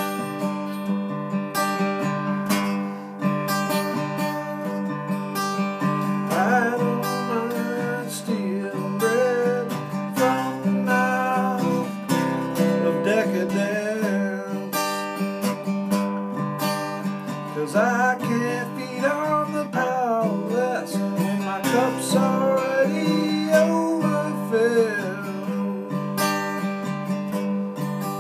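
Takamine acoustic guitar strummed in steady chords, with a man's voice singing along over it from about six seconds in.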